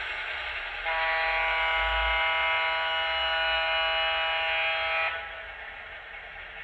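HO-scale Great Northern EMD F3 model locomotive's TCS WOW! sound decoder sounding a diesel air horn: one long, steady blast of about four seconds, starting about a second in, over the steady rolling noise of the model train on the track.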